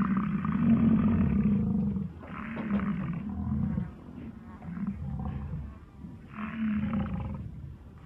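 Water buffalo lowing: one long deep call, then three shorter calls a second or two apart.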